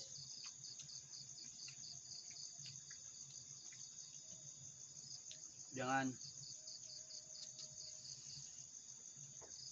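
Insects chirping steadily in a high, fast, even pulse. A short spoken word breaks in about six seconds in.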